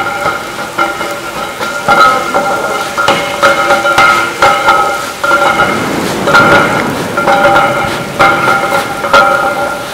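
Background music with repeated struck chords and a regular pulse, laid over the steady hiss of a heavy downpour.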